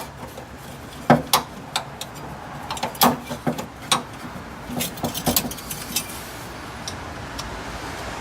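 Sharp clicks and light metallic clinks of hand tools working at the fuel filter's fuel-line fittings, prying off the plastic retainer clips, coming in scattered bursts over about five seconds and then stopping.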